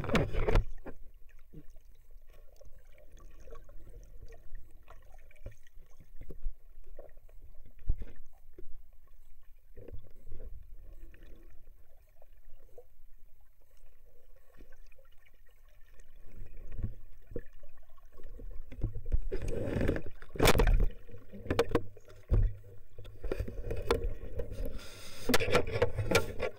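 Lake water moving around a submerged camera: a muffled low rumble with scattered clicks and knocks, and two louder spells of sloshing and churning, about two-thirds of the way in and again near the end.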